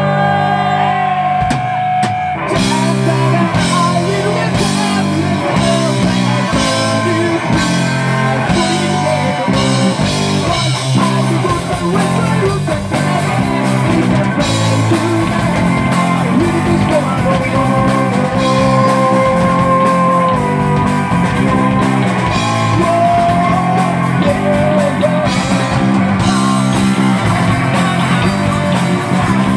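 Rock band playing live: electric bass, electric guitar and drum kit. The drums and cymbals come in about two seconds in, over a steady driving bass line.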